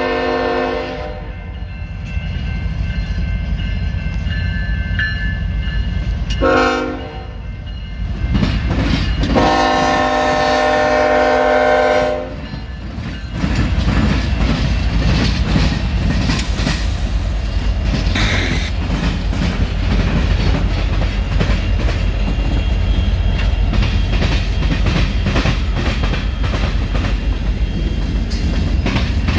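CSX freight train's diesel locomotive horn sounding for the crossing: a long blast that ends about a second in, a short one around six and a half seconds, and another long one from about nine to twelve seconds. The locomotives then pass close with a deep engine rumble, and the tank cars follow with their wheels clacking steadily over the diamond crossing.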